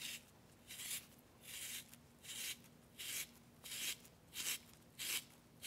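A zucchini being turned in a handheld pencil-sharpener-style spiralizer on its finer-noodle side, the blade shaving it into thin noodles: a faint rasping scrape with each twist, about one every three-quarters of a second.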